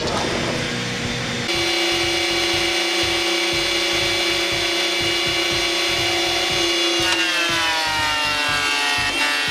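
Table saw running as a board comes off the blade, then a thickness planer running steadily with a high hum. About seven seconds in its pitch drops and stays lower as a board feeds into the cutterhead and the machine takes the load.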